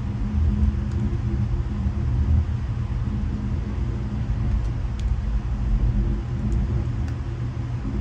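Steady low rumble of a double-stack intermodal freight train rolling past on the next track, heard from inside a passenger sleeper car, with a few faint ticks.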